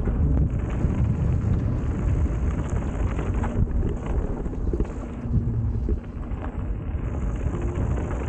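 Mountain bike rolling along dirt singletrack: steady wind rumble on the microphone over tyre noise on the dirt, with small clicks and rattles from the bike.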